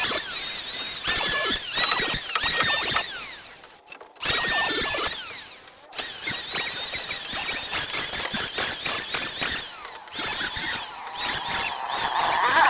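A power tool cutting wood in short repeated passes, with a high squealing whine whose pitch dips on each pass; it breaks off twice, briefly.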